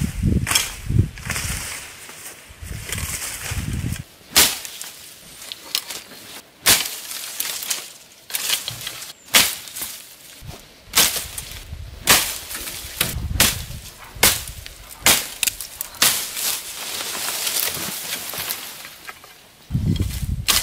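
Long-handled billhook chopping through shrub stems: a series of sharp cutting strikes, roughly one a second, with leaves and branches rustling between them.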